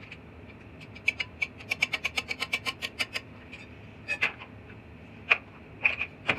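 A quick run of small, sharp clicks, about six or seven a second for two seconds, then a few single clicks, as of small hard parts being worked or handled.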